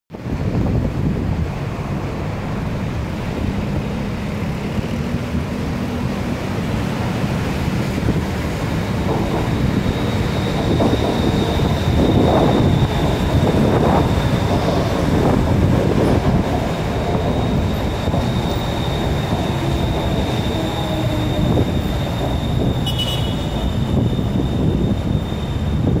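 BTS Skytrain Siemens EMU-A electric train running in along the elevated track and into the station, with a steady low rumble and, from about ten seconds in, a steady high whine.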